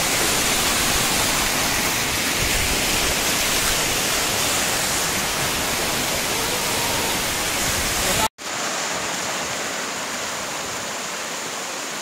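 Waterfall water pouring and splashing down sloping rock slabs, a steady rush. It drops out for an instant a little over eight seconds in and comes back slightly quieter.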